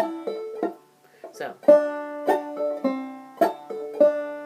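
Banjo in double D tuning played slowly in clawhammer style, picking out single melody notes a few a second, each note ringing on. There is a short pause about a second in.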